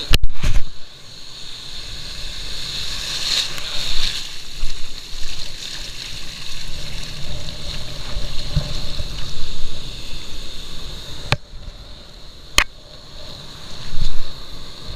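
Water sloshing, with gusts of strong wind rumbling on the microphone, loudest at the start, about four seconds in and near the end. Two sharp clicks come about a second apart late on.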